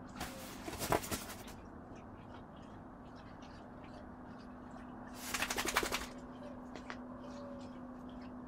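Dog moving on a leather couch: two short bursts of rapid scuffing and rubbing as its body shifts against the leather cushions, the first about a second long just after the start, the second around the middle. A steady low hum runs beneath.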